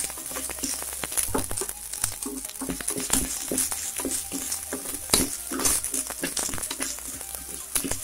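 Metal ladle stirring moong dal as it fries in ghee in a pressure cooker, with repeated scrapes of metal on the pan's base and the grains rattling. The dal is being roasted until golden brown.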